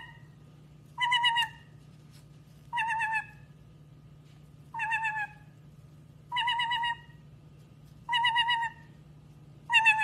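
White-bellied caique repeating a wavering, trilled call six times, each about half a second long with a short falling tail, roughly every one and a half to two seconds. A faint steady low hum runs underneath.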